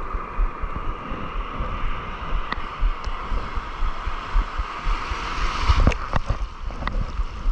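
Surf washing and rushing around a wading angler, with wind buffeting the microphone; a few light clicks in the second half.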